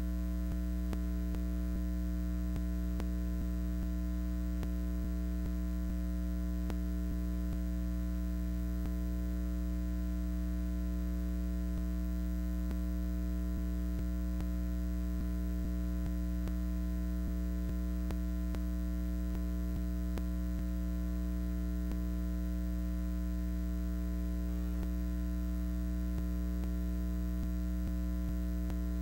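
Steady electrical mains hum on the audio feed: a low buzz with a stack of overtones that never changes, with faint scattered clicks.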